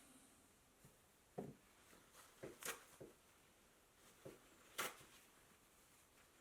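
A few light knocks and clicks, about six scattered through, from small parts and tools being handled on a workbench.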